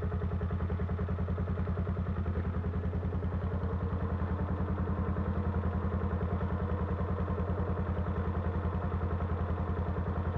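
Off-road trail vehicle's engine idling steadily, a low even pulsing rumble.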